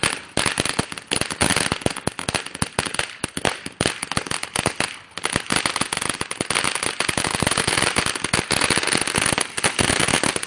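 Crackling firework going off: a loud, dense, rapid string of small sharp pops, unbroken throughout.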